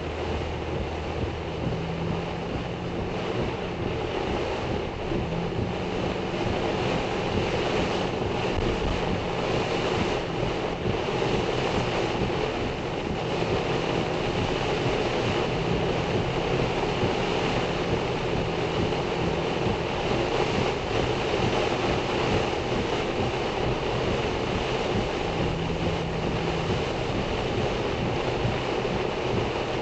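Heavy rain and wind beating on a car, heard from inside the car as a steady, dense rush, with the low hum of the car's engine underneath.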